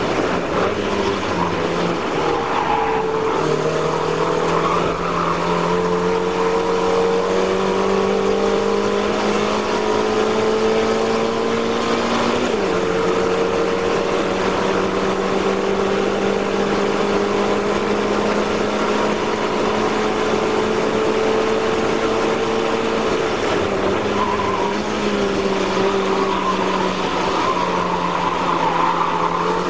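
Mazda MX-5 race car's four-cylinder engine heard from inside the cockpit, running hard at high revs over wind and road noise. The engine note drifts slowly and steps in pitch a few times, about 3 s, 12 s and 24 s in.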